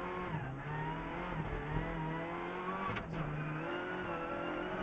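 Renault Clio Rally4's turbocharged four-cylinder engine heard from inside the cabin, accelerating with pitch climbing. There is a quick gear change with a click about three seconds in, then the pitch drops and holds steady near the end as the driver comes off the throttle.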